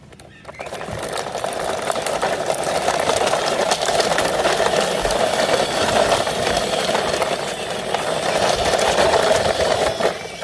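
Plastic toy truck pushed by hand, its wheels rolling and rattling steadily over a rough surface. The sound starts about half a second in.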